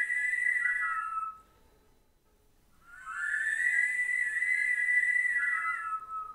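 Flute with electronics playing a held high note that slides up into place, holds, then drops a step, with a thin airy hiss above it. The phrase breaks off about a second in; after a short near-silent gap the same phrase comes back and holds for about three seconds before dropping a step again and stopping.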